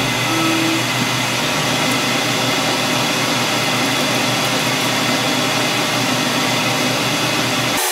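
Metal lathe running steadily, spindle turning while the carbide insert takes an automatic roughing pass along a shaft in outside turning. A short tone sounds about half a second in, and the low hum drops away abruptly near the end.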